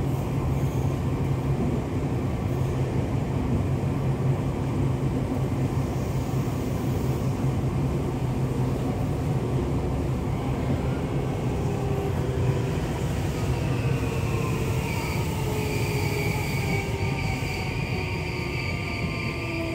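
Interior running sound of a Tokyo Metro 7000 series train with a Hitachi IGBT-VVVF traction inverter: a steady rumble of wheels on rail. From about halfway, the traction motor whine falls in pitch as the train slows, and steady high inverter tones join it near the end.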